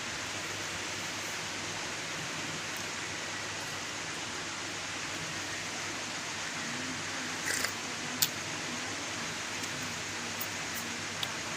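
Steady, even hiss, with a short scraping sound and a sharp click just past the middle, and a few light ticks near the end.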